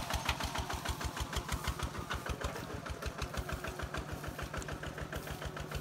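Engine of a two-wheel walking tractor running steadily, with a rapid, even beat of firing pulses and a low hum.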